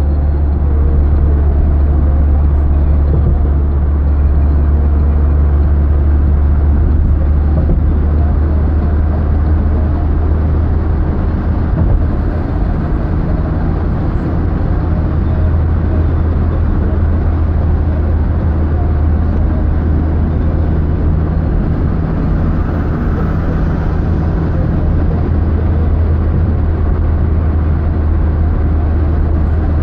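Steady road and engine noise inside a moving car's cabin: a strong, even low drone with tyre hiss above it.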